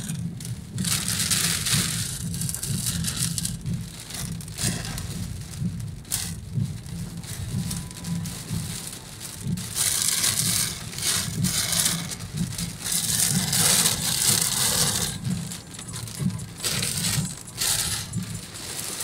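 Heavy rain pelting the roof and windshield of a moving car, heard from inside the cabin over a steady drone of engine and tyres on the wet road. The hiss of the rain and spray swells and fades every few seconds.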